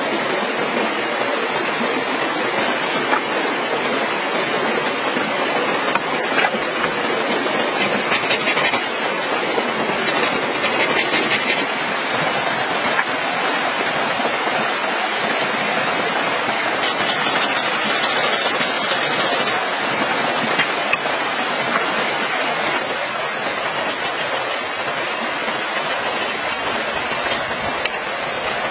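Rocky forest stream rushing steadily, an even water noise throughout. A few short stretches of brighter, higher rustling or scraping come through around eight, eleven and eighteen seconds in.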